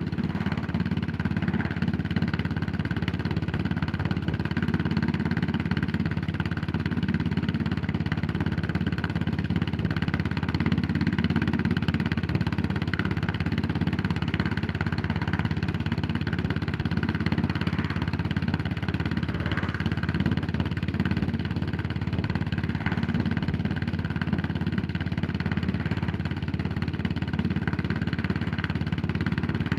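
Yamaha SR400's single-cylinder four-stroke engine running steadily, a low even engine note with no marked revving or stops.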